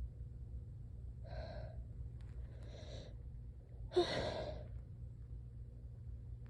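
A person gasping in the build-up to a sneeze: two breathy catches of the breath, then a louder, sharper gasp about four seconds in.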